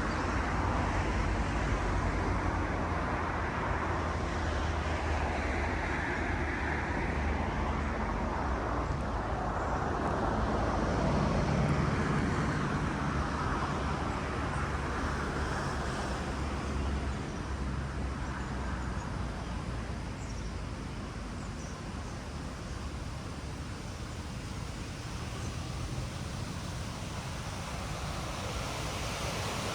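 Steady rumble of road traffic, swelling as a vehicle passes about a third of the way in and easing off later.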